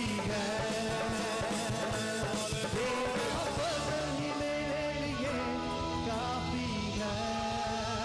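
Live Urdu/Hindi worship song: male voices singing into microphones over a driving dhol drum beat.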